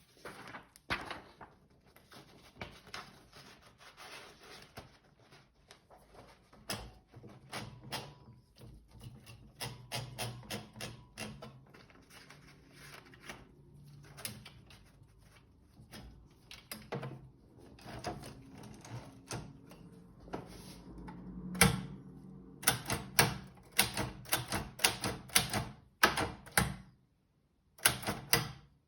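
President 7000 typewriter being typed on: irregular runs of key strikes, with a low hum underneath through the middle. The strikes get louder and come in quick bursts with short pauses in the last third.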